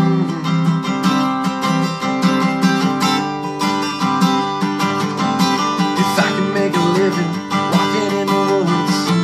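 Acoustic guitar strummed, steady chords played in a regular rhythm.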